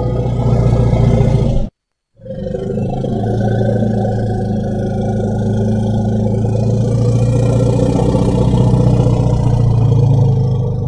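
Steppe mammoth sound effect: a low, steady rumbling call. It breaks off suddenly about 1.7 seconds in, and a second, longer rumble starts half a second later and holds to the end.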